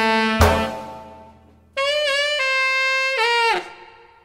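Background jazz-style music: a chord struck about half a second in that fades away, then a long held note from just under two seconds in that bends slightly and fades out near the end.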